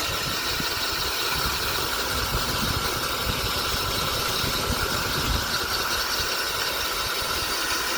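Cordless drill spinning a wet 1.5-inch diamond coring bit, grinding steadily through a hard slab of tile or stone, almost through the cut. The drill's battery is running low.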